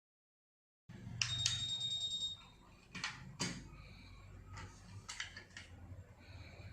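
Wireless nurse call receiver sounding its alert: one high steady beep about a second long, starting about a second in, which signals that a patient remote's call button has been pressed. Several sharp clicks are heard around and after it.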